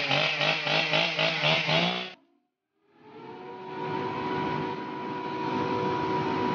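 A motor-driven machine runs loud and revved, then cuts off abruptly about two seconds in. After a short silence, a steadier machine hum with a few fixed tones carries on.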